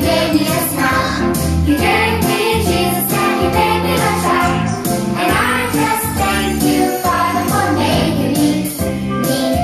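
Children's worship song playing: voices singing the chorus over an upbeat backing track.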